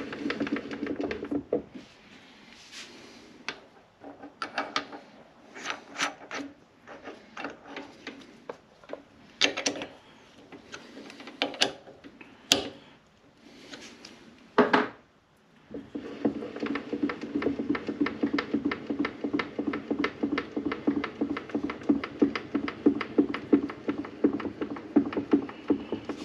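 Metal clinks and knocks as the chamfer mill on its arbor is handled and fitted into the benchtop milling machine's Jacobs drill chuck. In the last third this gives way to a steady run of fast, even mechanical ticking, several a second.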